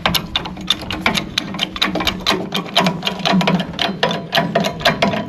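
Rapid, even ratcheting clicks, several a second, as the blade tensioner on a Cook's AC 36 bandsaw mill is tightened by hand.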